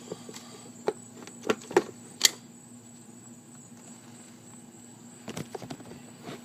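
Short sharp plastic clicks and rattles of a Mazda MX-5's wiring-harness connectors being worked loose by hand, a few about a second apart with the loudest a little over two seconds in, then a pause and a quick cluster of small clicks near the end.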